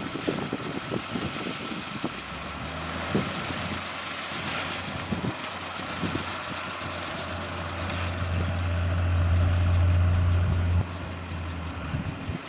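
Heavy diesel earthmoving machine engine running with scattered clanks and knocks. The engine grows louder about two-thirds of the way in, then drops back abruptly near the end.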